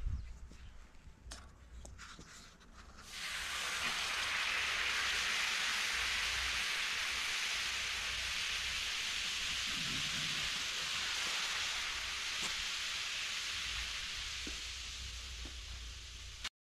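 Water poured onto the hot checker-plate steel griddle of a homemade rocket wood stove, sizzling as it boils off the plate. A few light knocks come first; the sizzle starts about three seconds in, holds steady and slowly fades near the end.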